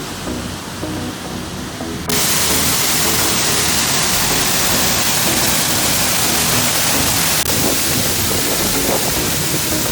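Waterfall rushing: a steady wash of falling water that jumps suddenly louder and brighter about two seconds in, then holds steady.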